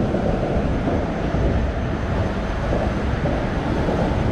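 Steady low rumble of traffic crossing the concrete bridge overhead.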